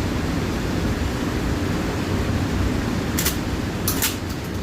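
Steady wind rumble on the microphone. About three and four seconds in there are a few short, sharp clicks from handling the Kel-Tec KSG shotgun.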